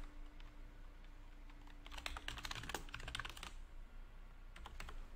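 Typing on a computer keyboard: quick, fairly faint key clicks, busiest from about two to three and a half seconds in, with a few more near the end.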